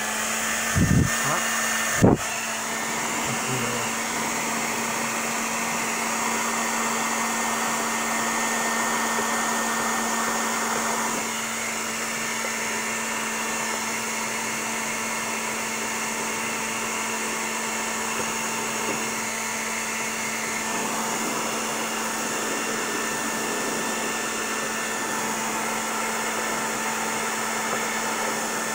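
Handheld hair dryer running steadily on its low, hot setting, blowing warm air onto a price sticker to soften the adhesive. A single sharp click comes about two seconds in.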